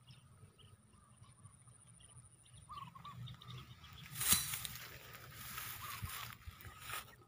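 Tall grass rustling and brushing close to the microphone for about three seconds from around four seconds in, starting with a bump. Faint short bird calls sound before and during it.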